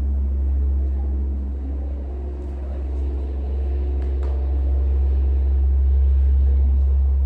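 A loud, steady low rumble, with a faint click about four seconds in.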